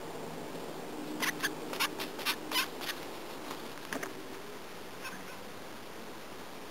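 A mouse squeaking in distress after being caught by a cat: a rapid run of about seven short, high squeaks in under two seconds, followed by a couple of fainter clicks.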